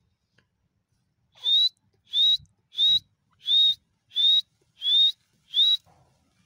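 A Dakhni teetar (grey francolin) calling: seven short, loud whistled notes, each rising slightly, repeated evenly about every two-thirds of a second.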